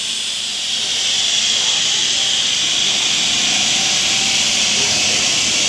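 Steady hissing machinery noise from a running plastic tube extrusion line, getting slightly louder about a second in.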